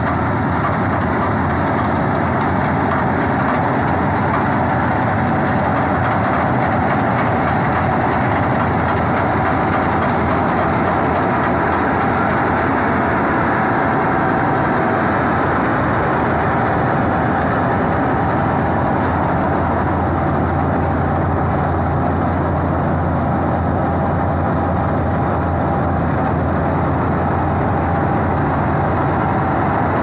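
Swaraj combine harvester's engine and threshing machinery running steadily and loud, heard close up while it cuts ripe rice.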